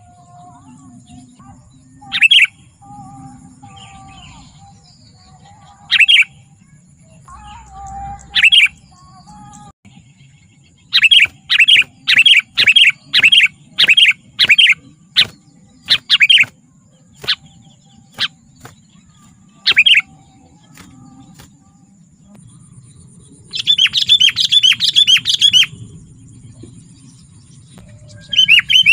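Sooty-headed bulbul (kutilang) calling: loud short call notes every few seconds, then a quick run of notes about two a second, and later a dense burst of chattering.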